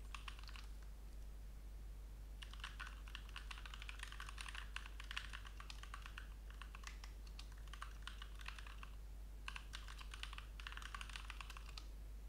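Faint typing on a computer keyboard: a few keystrokes at the start, then a long rapid flurry from about two seconds in, a short pause around nine seconds, and a second flurry that stops just before the end.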